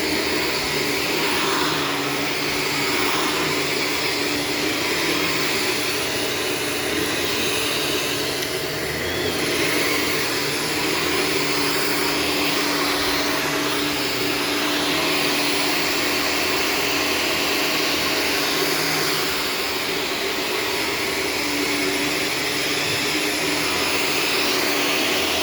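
Shark Stratos upright vacuum cleaner running steadily as it is worked over the floor, its motor tone shifting slightly about nine seconds in and again near twenty seconds.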